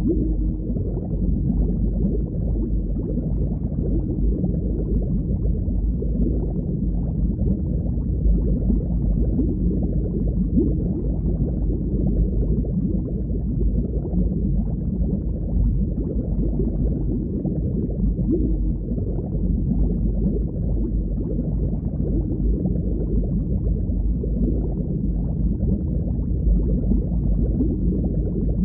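Underwater ambience: a steady, muffled low rush of moving water, with nothing sharp or high-pitched in it.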